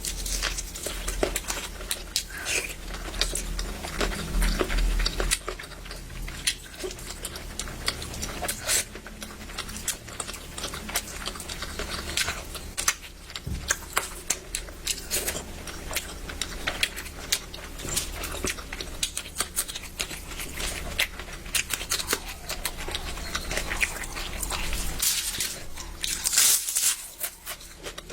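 A person eating close to the microphone: chewing with the mouth open and smacking the lips, making a steady run of short wet clicks.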